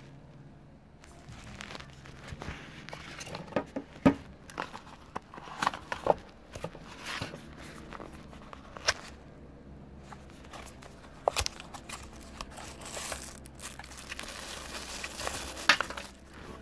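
Handling of a small cardboard box and its packaging: scattered taps and clicks of card flaps being opened, with a stretch of crinkling rustle over the last few seconds.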